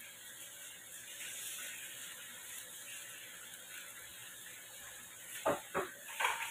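Lemon-pepper seasoning shaken from a spice bottle over chicken in a wok: a faint, steady rattling, then a few sharp clicks about five and a half seconds in.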